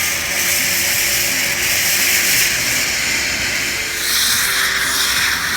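Steam locomotive venting steam: a loud, steady hiss, its tone shifting higher about four seconds in.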